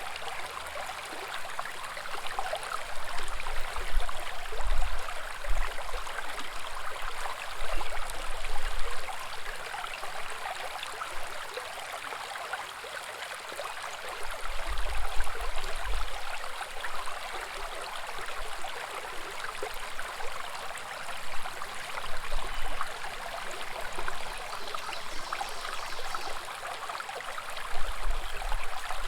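Small woodland brook babbling steadily over stones, a continuous rush of water. Brief low rumbles come and go several times.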